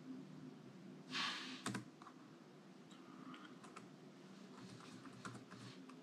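Light key taps on a Dell G15 laptop keyboard, a short scattered run from about halfway through, as at a Windows sign-in. Before them come a brief rustle and a single sharp click a little over a second in, the loudest sounds here.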